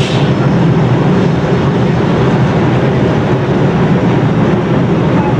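Lisbon street tram rolling along its rails, heard from inside the driver's cab: a steady loud rumble of wheels and running gear, with a brief hiss right at the start.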